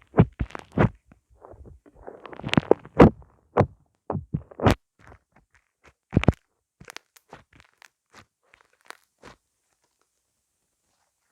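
A series of irregular knocks, clicks and crunches, densest over the first few seconds, then thinning out and stopping about nine seconds in.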